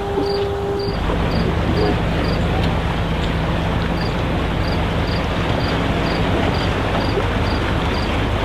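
A boat's engine runs with a steady low hum under heavy wind noise on the microphone. A faint high ticking repeats about twice a second. A steady two-note tone, like a horn, cuts off about a second in, just as the engine hum and wind rise.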